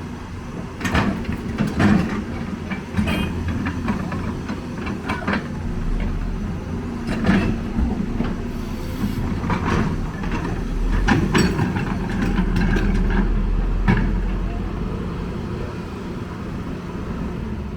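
Heavy earthmoving machinery's diesel engine running steadily, with irregular knocks and clanks of metal and rock.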